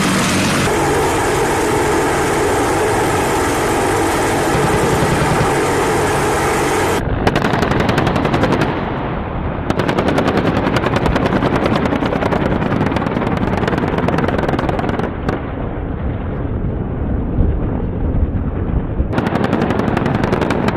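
Military attack helicopter in flight, loud. At first a steady engine and rotor sound, then from about seven seconds a rapid, even chop of rotor blades that keeps on with short breaks as the helicopter passes overhead.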